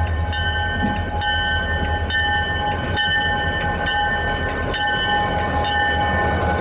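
EMD SD40-2 diesel locomotive with its 16-cylinder two-stroke engine rumbling as it rolls slowly past close by, its bell ringing about once a second.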